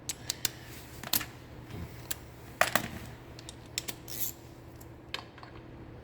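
Hand tools clinking and clicking against metal motorcycle parts as a bolt is worked loose, with irregular sharp metallic clicks, loudest in a pair about two and a half seconds in.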